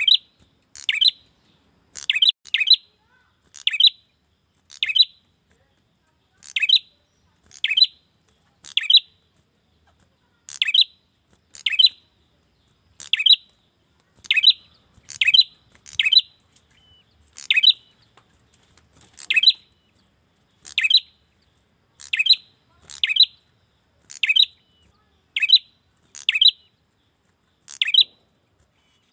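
Male prinia (prenjak) giving short, sharp, high-pitched calls, roughly one a second and sometimes two in quick succession, a call used to draw in a female.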